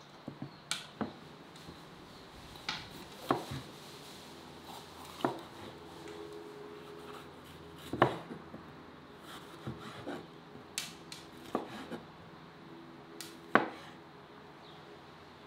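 Chef's knife slicing red bell peppers on a plastic cutting board: irregular sharp knocks as the blade strikes the board, the loudest about halfway through and again near the end.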